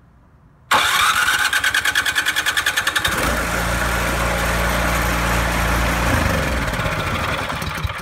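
A 110-volt electric starter cranks a Poulan Pro snowblower's LCT engine with a rapid, pulsing whir that rises in pitch. About three seconds in, the engine catches and runs. The starter turns it over only when switched on, now that its crushed micro switch has been replaced.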